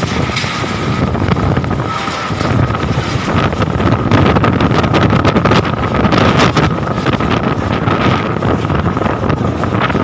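Strong windstorm gusts buffeting the microphone: a loud rumbling wind roar, heavier from about four seconds in. Irregular flapping and rattling come from a tarpaulin canopy and loose stall covers.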